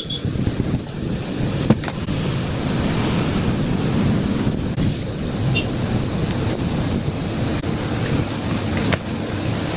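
Steady, rough rumbling of a running machine, with sharp clicks about two seconds in and again near the end.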